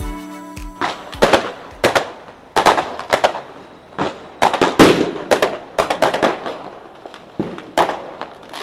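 Firecrackers and aerial fireworks going off across the neighbourhood: an irregular run of sharp bangs, roughly two a second, with no let-up.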